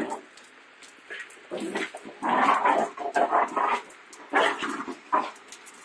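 Dogs barking and yapping as a Cane Corso and miniature pinschers scuffle: several short outbursts, the loudest about two to four seconds in.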